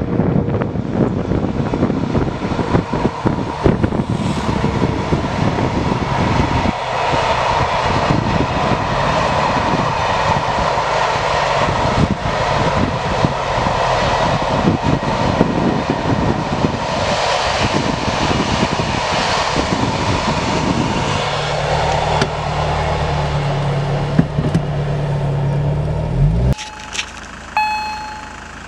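A long freight train of covered wagons rolling past with a steady rumble and a dense, irregular clatter of wheels over the rails. Near the end the sound cuts off and a level-crossing warning bell starts, repeating short ringing tones.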